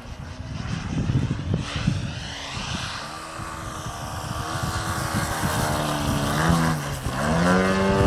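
Propeller engine of a radio-controlled Edge 540 aerobatic model plane in flight, its pitch sliding up and down as the plane manoeuvres. Near the end the pitch dips, then rises as the engine gets louder.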